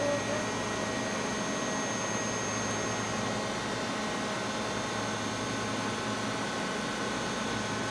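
Steady hum and hiss of factory machinery, with a few thin steady whine tones over it; the highest whine fades about three seconds in.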